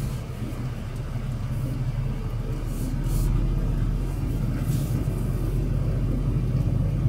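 Truck engine running at low road speed with a steady low drone, getting a little louder about three seconds in.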